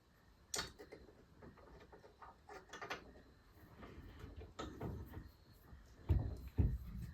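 Scattered metal clicks and clunks of hand tools being worked while crimping the end fitting onto a throttle cable, with two heavier thumps close together near the end.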